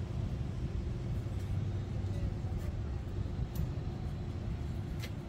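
Low, steady engine rumble of a large truck idling, with a faint steady hum above it and a couple of faint clicks near the end.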